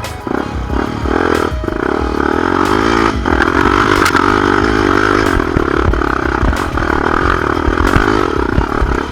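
Dirt bike engine revving up and down under load on a rough trail climb, with scattered clicks and clatter from stones and the bike's parts.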